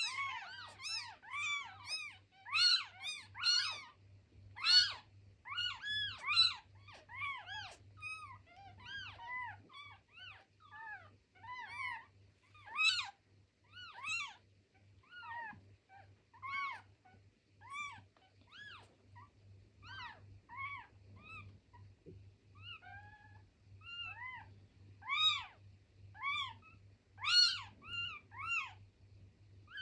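A litter of two-day-old kittens mewing: many short, high mews that overlap, thickest in the first few seconds, thinning out in the middle and picking up again near the end.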